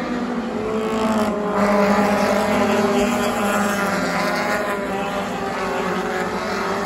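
A pack of short-track stock cars running past together, several engines overlapping, loudest about two seconds in as the cars go by.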